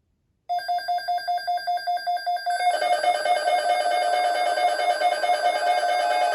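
Weather radio receiver's alert alarm going off: a rapid, evenly pulsed electronic beep starts about half a second in, and about two seconds later more beeping tones at other pitches join, so the alarm sounds denser and busier.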